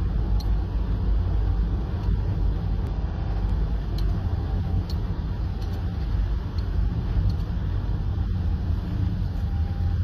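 Steady low rumble of a moving car's road and engine noise, heard from inside the cabin while cruising.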